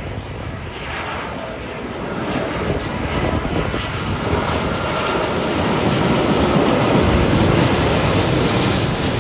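Jet engine noise from a Nepal Airlines Airbus A330 airliner passing low overhead on final approach with its landing gear down. The noise swells steadily to a peak about seven to eight seconds in.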